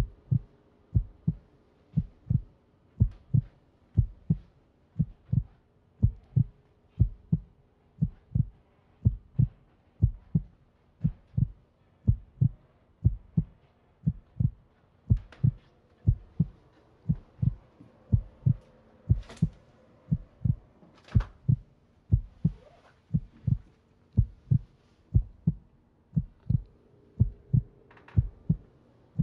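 Slow heartbeat sound effect: low thumps in lub-dub pairs, about one beat a second, starting suddenly, over a faint steady hum. Two brief, sharper sounds come about two-thirds of the way through.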